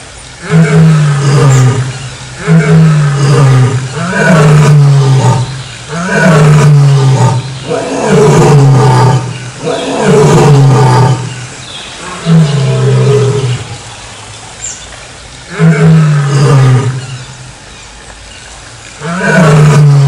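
Male lion roaring in a bout of deep calls, each about a second long and falling in pitch, coming roughly every two seconds with a couple of longer pauses near the end.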